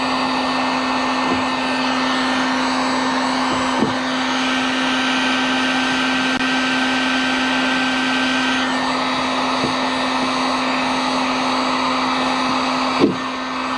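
Handheld heat gun's blower running steadily, used to melt HDPE plastic for welding a patch onto a plastic kayak hull. A few faint taps, and one sharp knock near the end.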